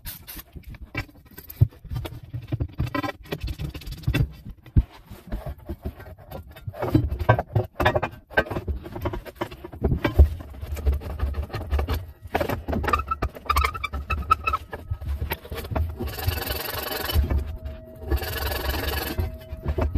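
A copper pipe and copper tee fitting being scrubbed clean with abrasive cloth and a fitting brush, the prep for a soldered joint. Scattered handling clicks and knocks, then three bursts of rough scraping in the last few seconds.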